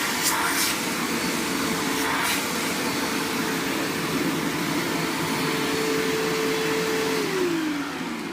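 Hoover WindTunnel Self Propelled Ultra upright vacuum cleaner running steadily with a constant motor whine. It is switched off near the end, the motor whine falling in pitch as it winds down.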